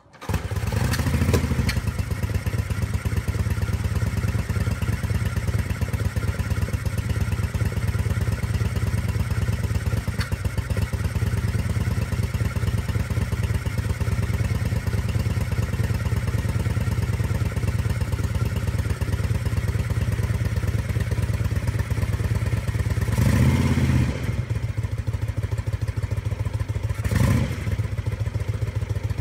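Homemade 998 cc Royal Enfield V-twin motorcycle engine kick-started, firing at once and settling into a steady idle. Two short throttle blips come near the end.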